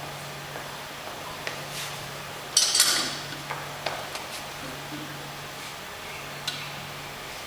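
Metal clinking and rattling of a Rolling Thunder grip handle and its loading pin against the stacked weight plates as it is taken hold of: a short cluster of sharp clanks about two and a half seconds in, then a few lighter clicks.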